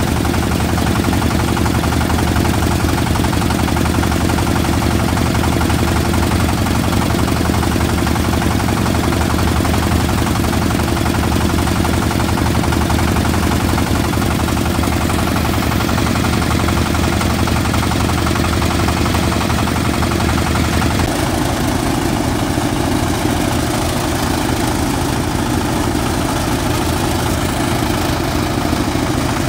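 An engine running steadily, its low tone shifting slightly about 21 seconds in.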